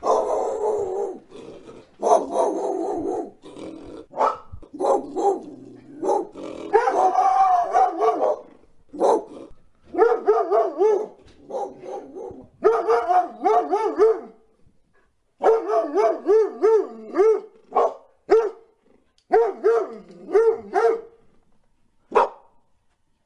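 A dog barking in a long series of calls, some short and some drawn out with a wavering, howl-like pitch.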